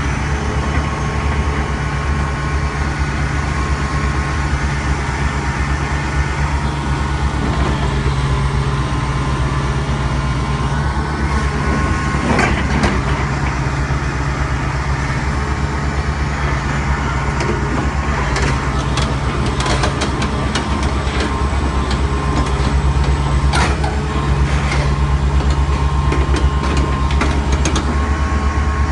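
1995 Komatsu PC650 hydraulic excavator's diesel engine running steadily, with a run of sharp metallic clanks in the second half.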